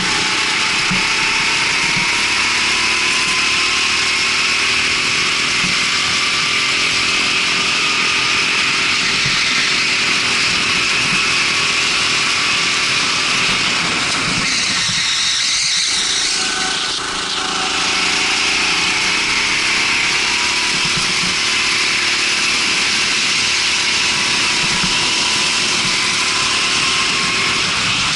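Rental go-kart engine running at speed, its pitch climbing slowly. About halfway through it drops and dips briefly as the kart slows, then picks up and climbs again.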